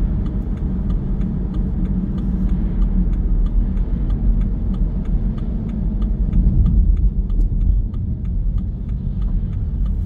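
Car moving at road speed, heard from inside the cabin: a steady low rumble of engine and tyre noise, with a faint rapid ticking over it.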